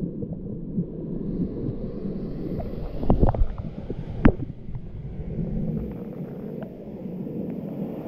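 Waterfall-pool water heard muffled through a camera held in the water: a dull, low rush without the usual hiss. A cluster of knocks comes about three seconds in, and a single sharp knock just after four seconds.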